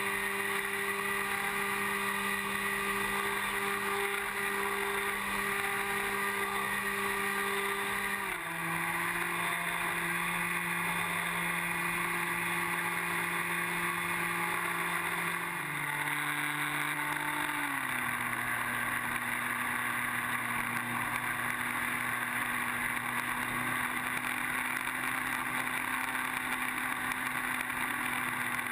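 Electric motor and propeller of a Skywalker FPV plane in flight (Exceed RC Rocket 3015 1200kv brushless motor with a 9x4.5 APC prop), heard from a wing-mounted GoPro with steady wind hiss. The motor's steady drone steps down in pitch three times, about a third of the way in, near the middle and once more shortly after, as the motor slows.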